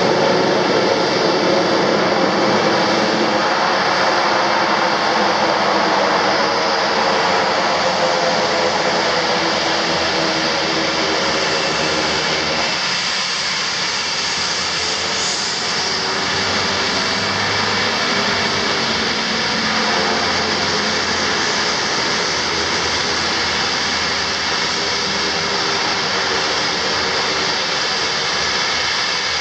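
Sita Air Dornier 228's two turboprop engines running as it taxis and turns on the apron. A steady high whine sits over a droning, slightly wavering propeller hum.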